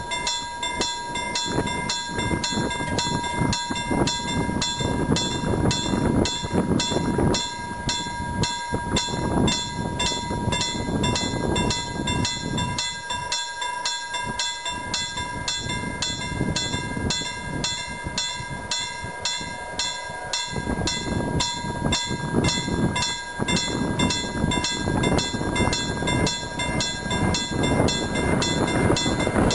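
Level-crossing warning bell ringing steadily at about two strikes a second while the crossing's lights flash, over an uneven low rumble. The rumble grows louder at the very end as the approaching express train nears.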